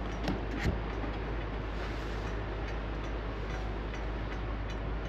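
Steady wind noise on the microphone, heavy in the low end, with two short clicks about half a second in.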